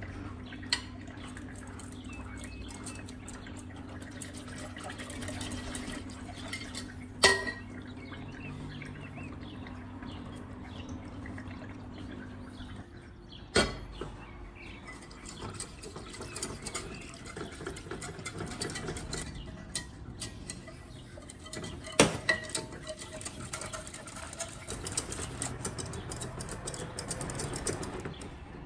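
Wire whisk stirring milk in a glass saucepan: fast, light ticking of the wires against the glass and sloshing of the milk, broken by three sharp clinks on the pot.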